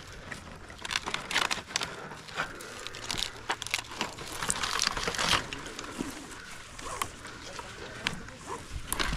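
Dry coconut palm fronds and husk crackling and rustling in irregular bursts as gloved hands work a rope around a coconut bunch at the top of the palm.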